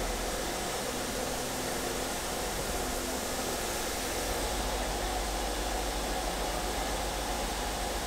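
Steady hiss of steam escaping from a British Railways Black 5 steam locomotive standing in steam, with a low rumble underneath.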